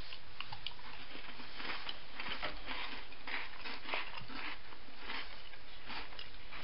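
A person chewing a Tim Tam chocolate biscuit dunked in a drink: soft, irregular chewing and mouth noises over a steady hiss.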